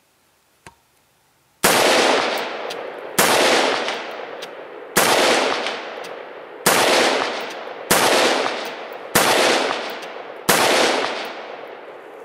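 AR-15 rifle fired seven times in slow, steady succession, about one shot every second and a half. Each report trails off in a long echo before the next.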